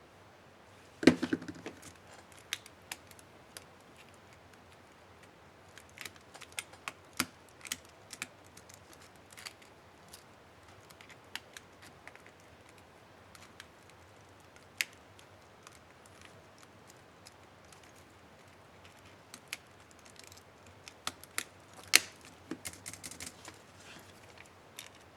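Scattered small plastic clicks and snaps of a laptop keycap and its retainer clips being fitted and pressed onto an HP DV4 keyboard. The sharpest snaps come about a second in and again near the end.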